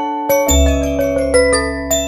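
Background music: a gentle bell-like melody of struck, ringing notes, about four a second, over a held bass note that comes back in about half a second in.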